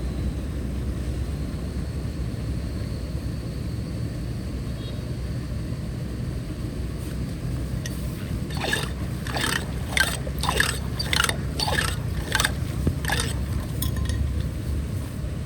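Steady low rush of water, with a quick run of about eight sharp scraping knocks, roughly two a second, starting a little past halfway.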